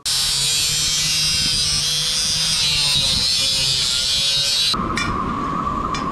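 Small electric angle grinder with a cut-off disc cutting through a 1-inch stainless steel tube, giving a harsh, high-pitched grinding. A little under five seconds in, the grinding cuts off suddenly, leaving a steady hum and low rumble with two sharp clicks.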